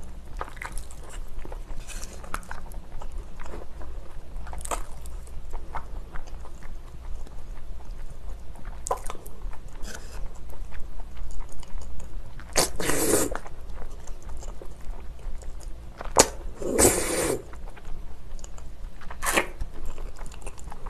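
A person eating spicy black noodles with chopsticks: wet chewing and small mouth clicks, with two loud noisy slurps of under a second each about two-thirds of the way through.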